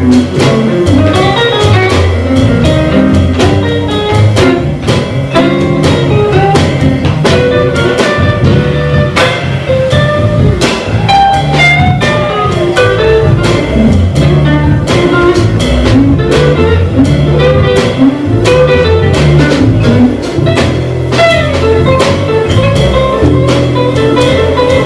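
Live jazz trio of guitar, double bass and drum kit playing a jazz blues, with the bass walking low notes under the guitar and the drums keeping time.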